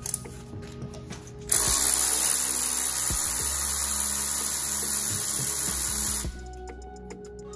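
Cordless electric ratchet running steadily with a high whir for about five seconds, starting about a second and a half in, as it spins a spark plug out of a Pentastar 3.6 L V6 cylinder head through a 5/8 in spark plug socket on an extension. Light clicks of the socket and tool come before and after the run.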